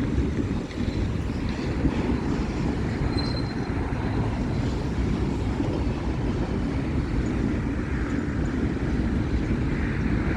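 Freight cars of a manifest train rolling steadily past, with a constant rumble of steel wheels on the rails. A brief faint high tone comes about three seconds in.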